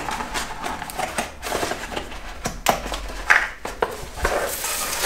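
A borescope kit being handled and packed into its carry case on a workbench: scattered clicks, knocks and light clatter, with a short rustle near the end.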